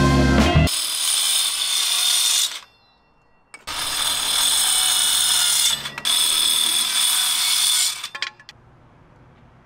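Power drill driving screws, running in three bursts of about two seconds each with a steady high whine, followed by a few clicks.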